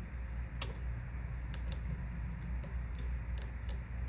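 Light, irregular clicks and taps of small parts and tools being handled as internal plates are fitted onto a Samsung Galaxy S8 Plus, over a steady low hum.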